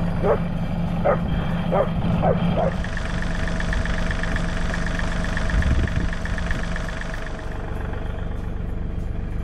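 A small dog barks five times in quick succession over the steady low hum of an engine running; after the barks the hum carries on, with a steady higher whine joining in.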